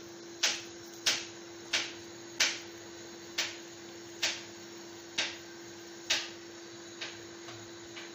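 Hands slapping a ball of raw kaabir meatball mixture from palm to palm to firm it: sharp wet slaps about once every three-quarters of a second, fading toward the end. A steady low hum sits underneath.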